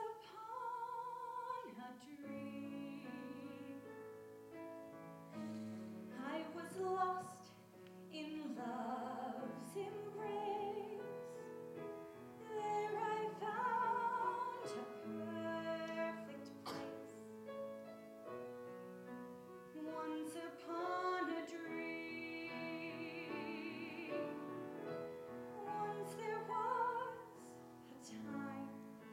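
A young woman singing a slow, sad song solo in a classical, operatic style, holding long notes with vibrato over a piano accompaniment.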